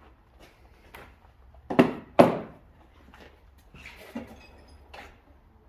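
Tools and parts being handled during hub and brake work: two sharp knocks in quick succession about two seconds in, then a few fainter knocks.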